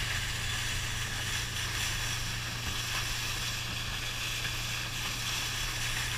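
Motorboat running at speed: a steady low engine drone under the hiss of spray and rushing air.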